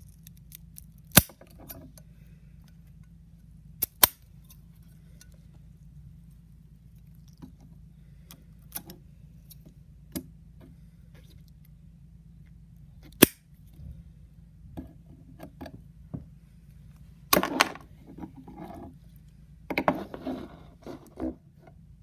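Metal blade cutting through lumps of putty and knocking on a wooden board: a few sharp clicks several seconds apart with softer ticks between. Near the end comes a busier clatter of handling.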